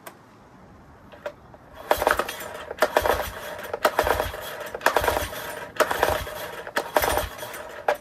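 Yamaha 9.9 hp four-stroke outboard being pull-started on its recoil starter, one sharp, rattling pull about every second from about two seconds in. The engine turns over but does not catch: the owner puts this down to fuel starvation, no fuel reaching the carburettor.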